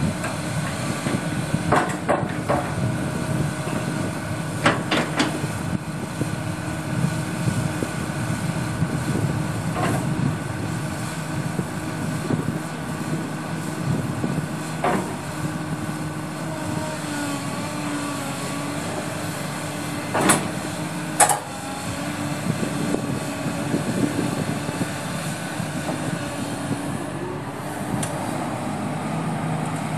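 Komatsu PC300LC-7L excavator's SAA6D114E-2 turbo diesel engine running steadily, with a few sharp knocks from the machine, several coming in pairs, about 2, 5 and 20 seconds in.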